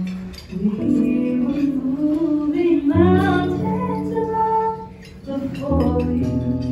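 A woman singing a slow song into a handheld microphone over instrumental accompaniment, holding long notes with vibrato. The music dips briefly about five seconds in and then resumes.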